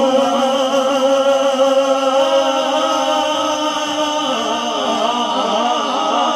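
A man singing a naat into a microphone, holding long notes that waver and turn in ornamented runs from about four seconds in.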